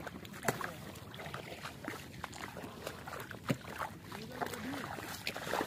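Wading through shallow river water while setting out plastic duck decoys: water sloshing around the legs, with a few sharp knocks spread through.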